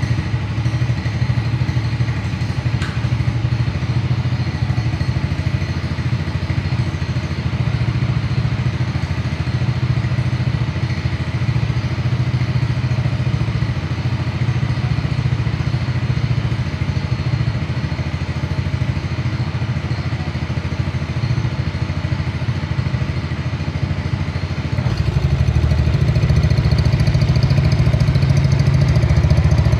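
Yamaha automatic scooter's single-cylinder engine idling steadily just after being kick-started, having sat unused for a long time. It grows louder near the end.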